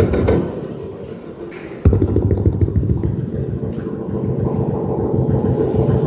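A performer's imitation of a helicopter passing over a train: the rapid chopping fades away in the first second, then about two seconds in a low train rumble comes back suddenly and carries on.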